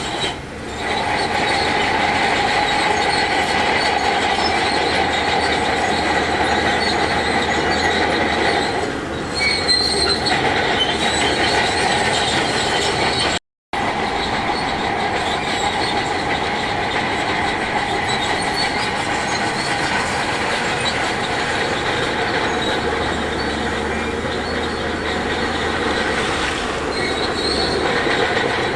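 Heavy earthmoving machinery working rock, with a steady high metallic squeal and clatter over the engine noise. The sound cuts out completely for a moment about halfway through.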